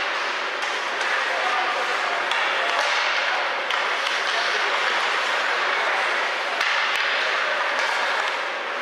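Ice hockey rink ambience: a steady murmur of many spectators talking and calling out, with sharp clacks of sticks and puck several times during play.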